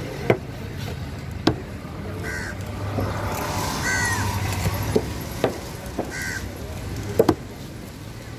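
Heavy fish-cutting knife chopping through yellowfin trevally into a thick wooden board: several sharp chops at uneven intervals, two of them in quick succession near the end. Crows caw three times in between.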